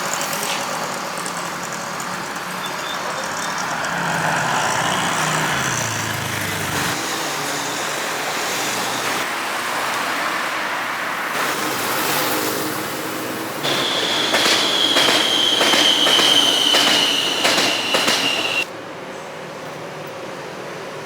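Metro train running on the rails, heard from on board. About two-thirds of the way through, a loud, high, slowly falling squeal of steel wheels on the track sounds for several seconds, then cuts off suddenly.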